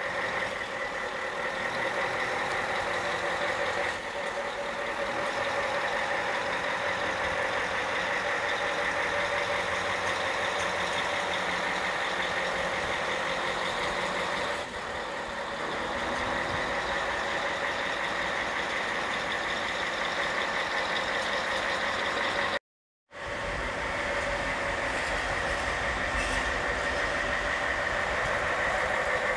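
Heavy-haul trucks hauling steel bridge sections on multi-axle trailers, their diesel engines running in a steady drone with steady higher tones over it. The sound cuts out completely for about half a second about three-quarters of the way through.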